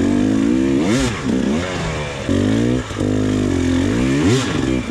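Dirt bike engine revved in short throttle blips, the pitch rising and falling several times as the bike picks its way through ruts and over logs.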